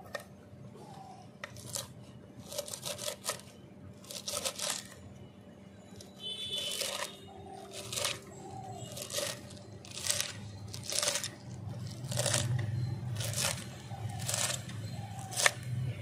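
Kitchen knife chopping a bunch of brahmi (water hyssop) stems and leaves on a wooden board, a crisp crunch with each stroke, roughly once a second.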